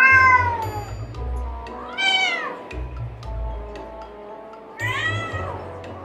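Domestic tabby cat giving three pitiful meows about two and a half seconds apart, the first and loudest a falling cry, the other two rising and falling; the cat is shut in a pen and doesn't want to be there. Background music with a soft pulsing bass runs underneath.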